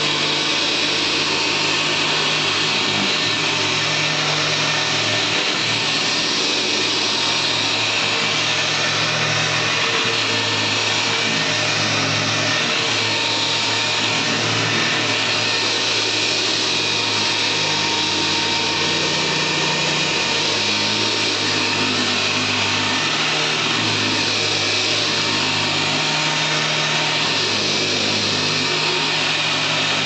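1954 Hoover Model 64 upright vacuum cleaner running steadily while pushed over carpet, its motor holding an even pitch and level throughout.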